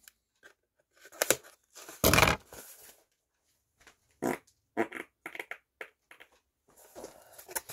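Paper padded mailer being handled and emptied: irregular crinkling, crackling and scraping in short spells, the loudest a half-second rustle about two seconds in and a quick run of crackles about five seconds in.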